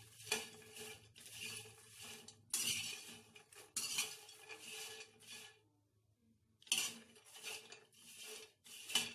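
Spoon scraping against a metal kadai while stirring popcorn to coat it with spice powder: a run of rustling, scraping strokes, pausing briefly about two-thirds of the way through.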